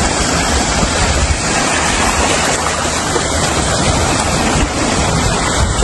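Steady loud rush of sea waves mixed with wind buffeting the phone's microphone.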